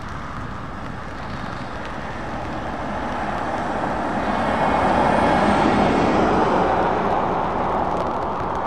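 Road traffic passing close by: tyre and engine noise of cars and a car towing a caravan, swelling to its loudest a little past halfway as they go by, with a Volvo FH16 lorry approaching in the mix.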